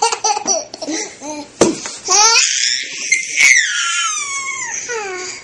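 Baby laughing in high-pitched squeals, with choppy gasping laughs at first and several long falling squeals in the second half.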